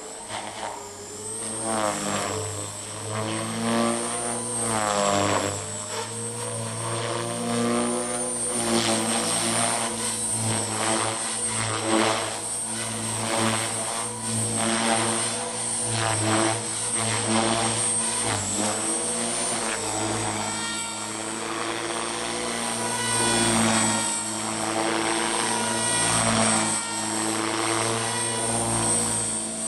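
Align T-Rex 450 SE electric RC helicopter in flight: the brushless motor and spinning rotors make a steady high whine and buzz. The pitch sweeps up and down repeatedly as the helicopter manoeuvres.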